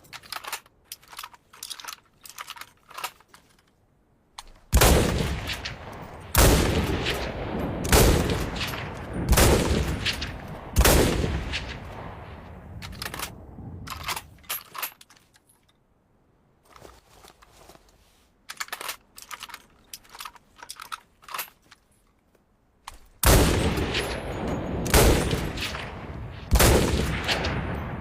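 Mosin-Nagant M44 bolt-action carbine (7.62×54mmR) firing: five loud shots about a second and a half apart, each with a long echoing tail, then a few more near the end. Between the volleys come runs of small metallic clicks.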